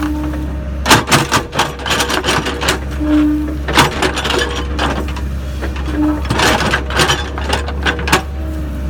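Sany SY55C mini excavator at work: its diesel engine runs steadily under a run of sharp, irregular clanks and knocks, with brief steady whines at about three seconds and six seconds.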